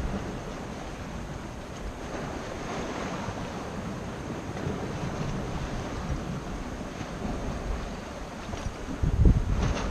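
Sea surf washing against rocks, with wind buffeting the microphone in low rumbles, the strongest gust near the end.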